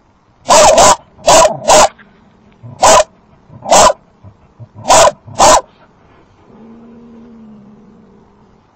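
Dog barking hard at a possum hiding under a shed: a run of about seven loud, sharp barks, some in quick pairs, followed by a quieter low drawn-out sound near the end.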